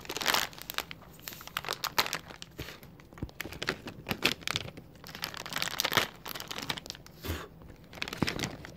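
A cardboard dog advent calendar being forced open by hand: irregular crinkling and tearing of cardboard and packaging, with scattered sharp clicks.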